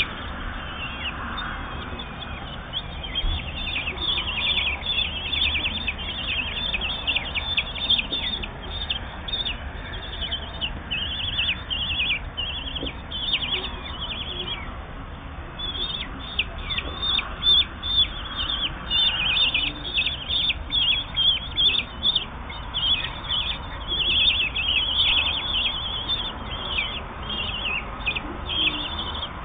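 Common kestrel nestlings, about eight to ten days old, begging with rapid high-pitched calls, each sliding down in pitch, while the parent feeds them. There is a brief lull about halfway through.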